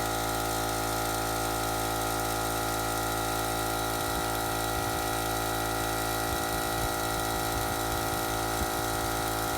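Electric air compressor running with a steady hum of evenly spaced tones, its motor and pump refilling the tank.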